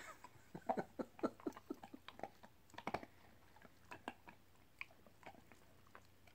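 A German Shepherd puppy gnawing a hard dog-treat bone: a rapid run of crunching bites in the first three seconds, then fewer, scattered crunches.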